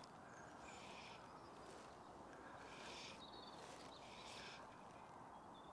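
Near silence: faint outdoor background hiss with a few faint, short bird chirps.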